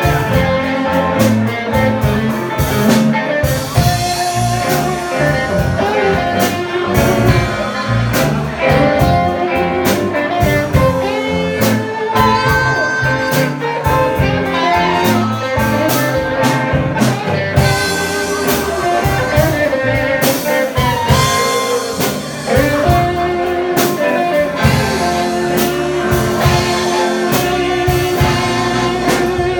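Blues band playing live, an instrumental passage with drums keeping a steady beat under a lead line of held and bending notes.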